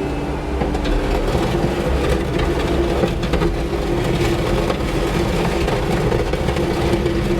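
New Holland L318 skid steer running steadily, its engine rumbling with a constant high tone over it.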